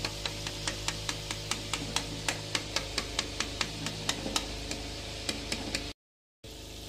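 A metal ladle stirring a bubbling tomato masala in a large metal pot. The ladle knocks against the pot about four times a second over a steady low hum. The sound cuts out briefly about six seconds in.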